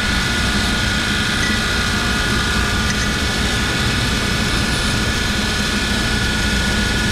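A loud, steady machine drone, unchanging throughout: a low hum under a constant higher whine.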